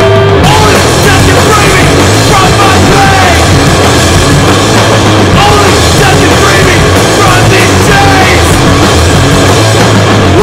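Loud, distorted punk rock: full band with electric guitars, bass and drums. A held note cuts off right at the start as the band comes in at full tilt.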